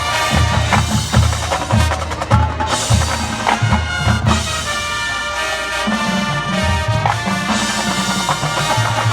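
High school marching band playing: brass with a steady pulse of bass drum hits about two a second. The low drums drop back for a couple of seconds in the middle while the horns hold notes, then the drum pulse comes back.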